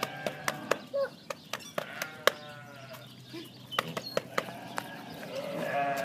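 A young goat bleating about two seconds in, among scattered sharp clicks and taps.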